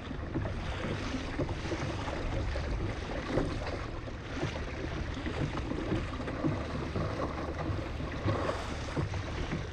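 Wind buffeting the microphone over rough sea, with choppy waves slapping and splashing around a kayak in a steady rush of noise.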